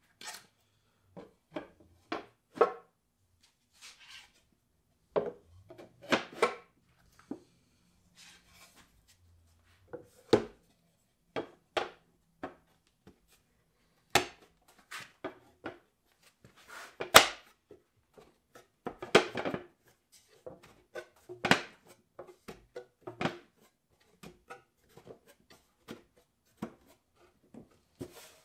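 Thin wooden boards knocking, clattering and scraping against one another and against a wooden bookshelf case as they are handled and set into its back, a string of separate knocks with the loudest about 17 seconds in.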